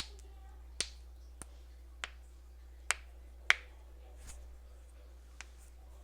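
Human joints being cracked: a run of sharp, separate pops at irregular intervals, about eight of them, the loudest about three and a half seconds in.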